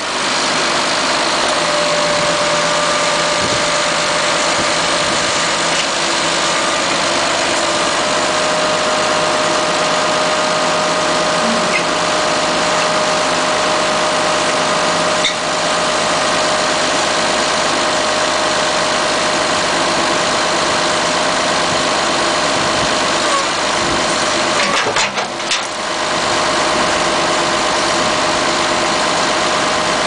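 A 1986 Case 680K backhoe's diesel engine idling steadily.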